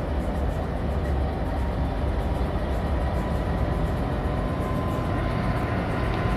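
NR class diesel-electric freight locomotive approaching and passing close by, its engine running with a steady deep sound.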